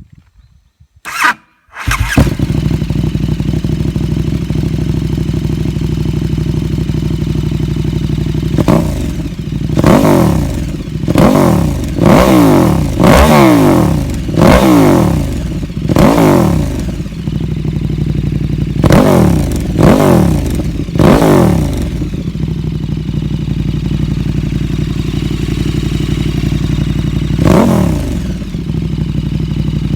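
KTM 1290 Super Duke R's 1301 cc V-twin, breathing through an aftermarket slip-on silencer, is cranked and catches about two seconds in, then idles and is blipped about eleven times in sharp throttle revs, most of them between about 9 and 22 seconds and one more near the end. The exhaust is very loud.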